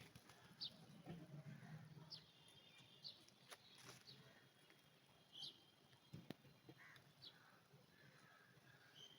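Faint birds chirping: short, high, falling notes every second or so, with a few soft clicks in between.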